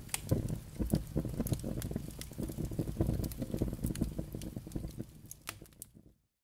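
Fire sound effect: a low crackling rumble with many sharp pops, fading away and cutting off just before the end.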